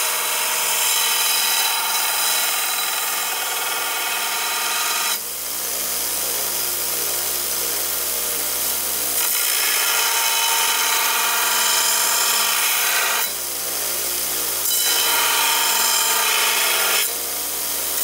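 Belt grinder running with a steel knife blade pressed against the belt, grinding the forged blade to shape. The grinding noise is continuous but shifts in strength a few times as the blade is worked against the belt.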